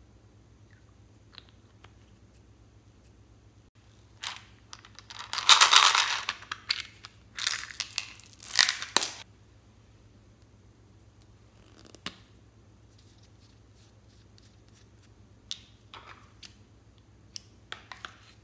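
Packaging crinkled and torn open by hand: several loud rustling, tearing bursts in the middle of the clip, followed by a few light clicks and taps.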